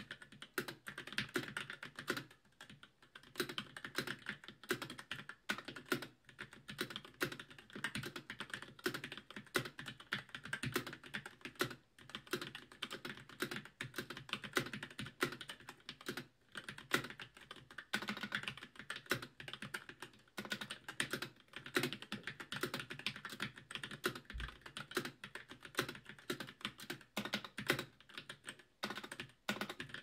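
Keychron K6 mechanical keyboard with Gateron G Pro Red linear switches being typed on quickly: a dense, continuous run of keystroke clacks, broken by a couple of brief pauses.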